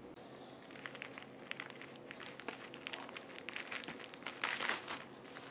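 Small plastic zip-top bag crinkling and crackling as it is handled and opened, a run of quick faint rustles that grows denser and louder past the middle.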